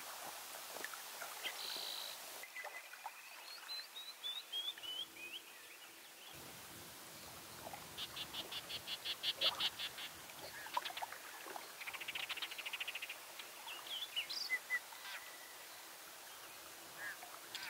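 Birds calling in a quiet outdoor setting: a run of clear whistled notes stepping down in pitch, then a fast, even trill and later a buzzy trill, with scattered chirps.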